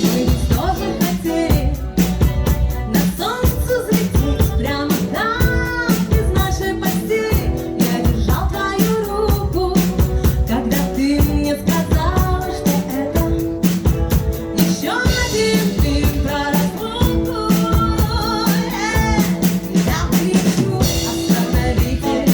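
A song with singing over a steady drum-kit beat.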